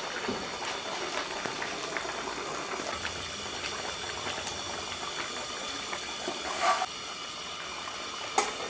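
Pot of fish curry broth with potatoes boiling, bubbling and hissing steadily with many small crackles. A brief louder sound comes about three-quarters of the way through.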